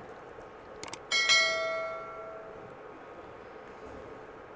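Subscribe-button animation sound effect: quick mouse clicks just before a second in, then a bright bell chime that rings out and fades over about a second and a half.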